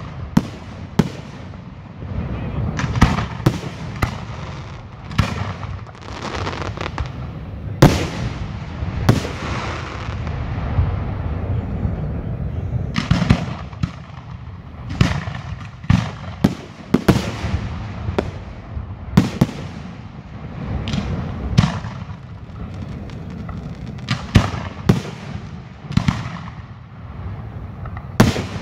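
Aerial firework shells bursting one after another: sharp booms every second or so, some heavier than others, each followed by an echoing rumble.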